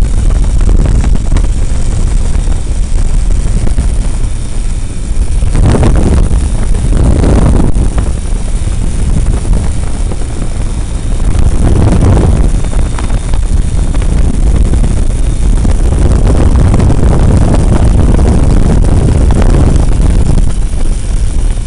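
Loud steady drone of an aircraft engine and rushing air heard from on board in flight, swelling briefly a few times.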